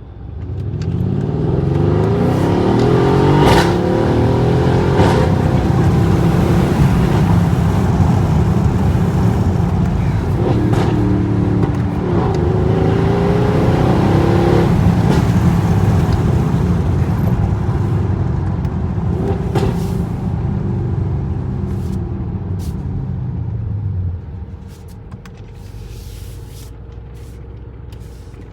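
Mercedes-AMG GLS 63's twin-turbo V8 exhaust running loud, its pitch rising and falling as it revs, with several sharp pops from the exhaust. The engine drops to a lower level near the end.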